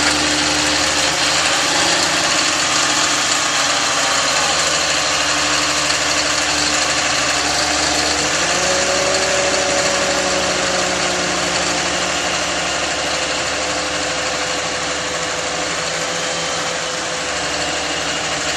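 Snowmobile trail groomer tractor's engine running steadily under load as it levels a load of sand. Its note shifts up a little about halfway through.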